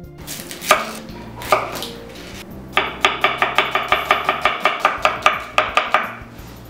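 Kitchen knife slicing a red onion thinly on a wooden cutting board: two separate cuts first, then a quick, even run of knife knocks on the board, about six a second, for some three seconds.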